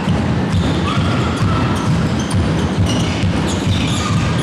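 Handball game play on an indoor court: the ball knocking against the hall floor and hands, with short squeaks of players' shoes on the court, over a steady low rumble.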